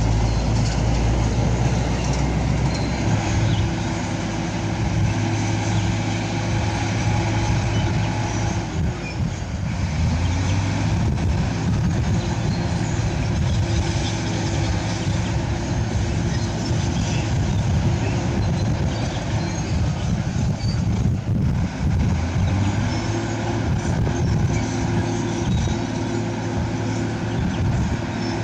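Diesel engines of heavy earthmoving machinery running under work, a steady engine note that sags about nine seconds in and climbs back a second later.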